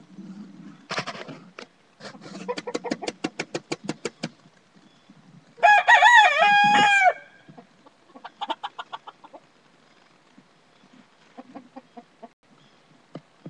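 Rooster crowing once, a call of about a second and a half some six seconds in, the loudest sound here. Before it comes a quick run of clucks, about eight a second, and a few scattered clucks follow.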